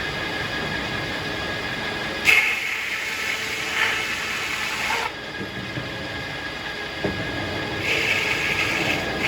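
Circular sawmill running steadily with a constant high hum. There are two louder, brighter stretches, one from about two to five seconds in and one shorter one near the end.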